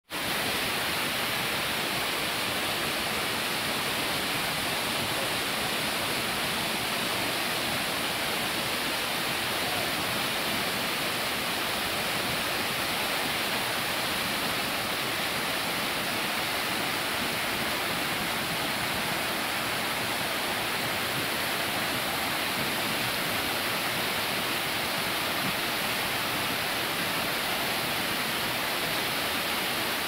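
Waterfall cascading down a broad sloping rock face: a steady, unbroken rush of water.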